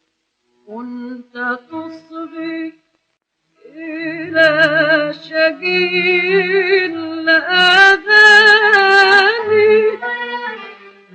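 A woman singing an Arabic song in a 1938 recording: a few short phrases, a brief pause, then a long, loud line with heavy vibrato and ornamented runs.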